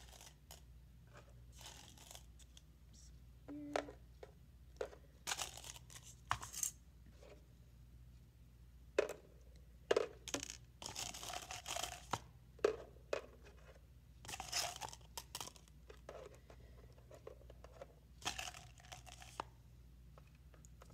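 Rustling and tearing of plastic candy packaging in several stretches, with small taps and ticks as candies are handled and set down.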